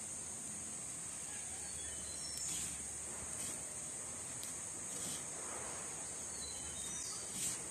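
Steady high-pitched drone of insects in the background, with a few faint bird chirps. A few brief soft rustles come from breadcrumbs as hands press a cabbage-leaf roll into a clay bowl of crumbs.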